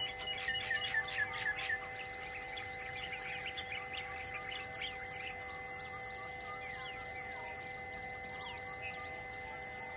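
Wild birds calling and chirping over a steady insect hum, with a quick run of about five short falling notes about a second in.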